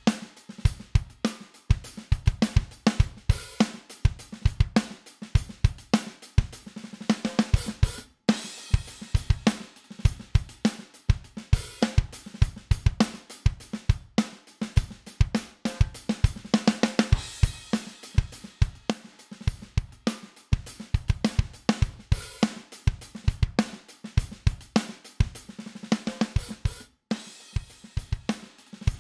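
Drum kit playing a steady groove of kick, snare, hi-hats and cymbals on a drum bus, stopping for a moment a few times. Toward the end it plays through an SSL X-Comp bus compressor that is taking off some gain.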